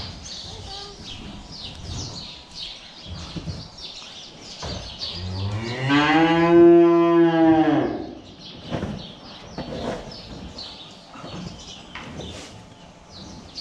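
A calf moos once: a single call of about three seconds, starting about five seconds in, that rises in pitch and then falls away. Around it come short scrapes and knocks from a long-handled tool working the straw bedding in the pen.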